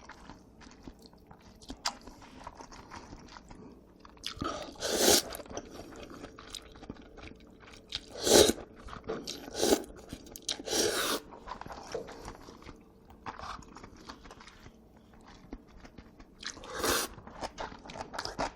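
Close-miked eating of jajangmyeon and jjamppong: chewing and biting, with a few louder mouth noises scattered irregularly, the loudest about 5, 8, 11 and 17 seconds in.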